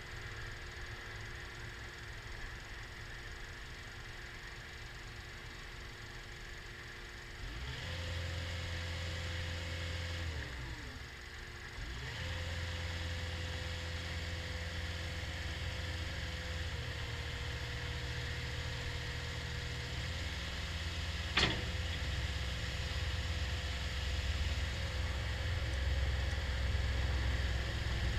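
Caterpillar 236D skid steer loader's diesel engine idling, then revved up about a quarter of the way in, dropping back briefly and revving up again to run steadily at higher speed. A single sharp click about three quarters of the way through.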